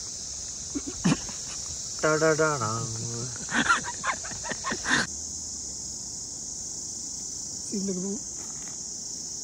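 Insects chirring in a steady, unbroken high drone. A person's voice breaks in loudly between about two and five seconds in, with a short vocal sound again near the end.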